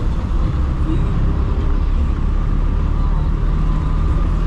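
Steady road traffic and vehicle engine noise with a heavy low rumble.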